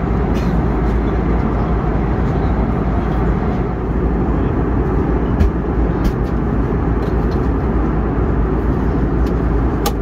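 Steady cabin noise of an Airbus A321neo in cruise: a continuous deep rush of engine and airflow heard from a window seat. A few faint clicks come through about halfway and near the end.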